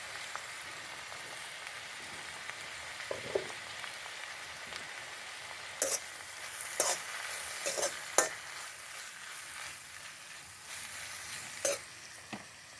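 Mustard greens sizzling in hot oil in a pan while being stirred with a spatula, with a steady hiss and several sharp knocks and scrapes of the spatula against the pan.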